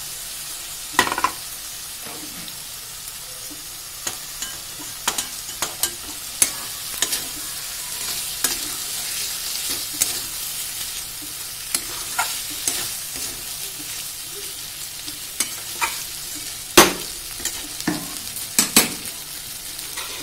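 Small whole potatoes and spice paste sizzling in hot oil in a metal kadai, with a flat metal spatula scraping and knocking against the pan as they are stirred. The sharp knocks come irregularly, and the loudest falls about three seconds before the end.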